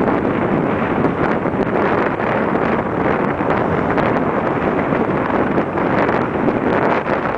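Strong wind buffeting the microphone on a sailboat under sail: a loud, steady rushing that flutters irregularly in level.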